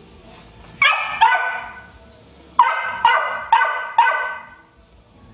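Rhodesian ridgeback puppy barking at an older dog that holds a rawhide: high-pitched demand barks begging for the chew. Six sharp barks, two about a second in, then four in quick succession a little later.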